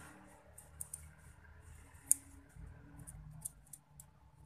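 Small, sharp clicks and ticks of a mobile phone's circuit board and metal scissors being handled, scattered irregularly, the loudest about two seconds in.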